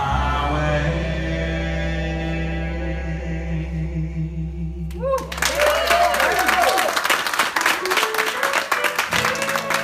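The song's last note on voice and strummed acoustic guitar, held and slowly fading. About five seconds in, applause breaks out, with a few voices gliding above the clapping.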